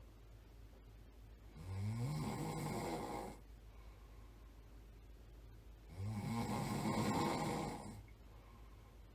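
A person snoring in sleep: two long snores about four and a half seconds apart, each rising in pitch as it begins, with quiet pauses between them.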